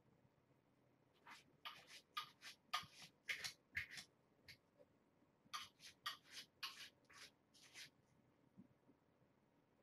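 Kittens scuffling on a fleece blanket, their needle-sharp, unretracted claws making short scratchy rubs in quick runs, one bunch about a second in and another around the middle.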